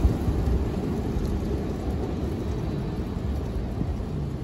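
Steady low rumble of a CSX freight train's cars rolling through a grade crossing, with no horn.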